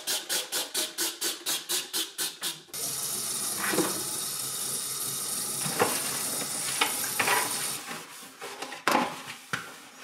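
Quick, even scrubbing strokes, about five a second, on a plastic refrigerator drip tray. About three seconds in, a kitchen faucet starts running steadily to rinse the tray, then stops near eight seconds, followed by soft wiping.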